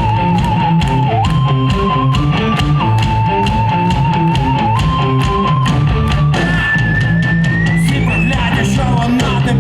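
Rock band playing live, an instrumental passage: a held lead melody stepping between notes and gliding upward near the end, over a steady drum beat and bass line.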